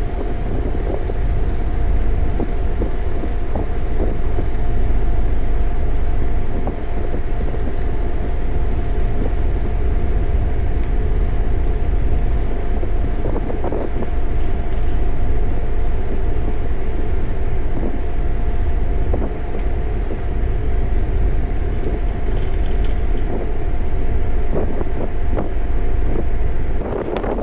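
Wind buffeting the microphone over a steady low engine drone, with a faint constant hum running through it.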